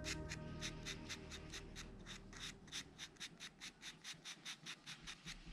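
Red-brown pastel pencil hatching on toned drawing paper: quick back-and-forth scratching strokes, about five a second, steady in rhythm.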